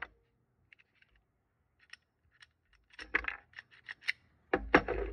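Pistols and magazines being handled on a shooting-range bench: scattered sharp clicks and taps, then a denser clatter of hard knocks in the last two seconds.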